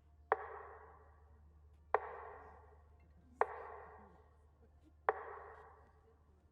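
Slow metronome beat marking a minute of silence: a sharp ringing stroke about every one and a half seconds, each dying away before the next.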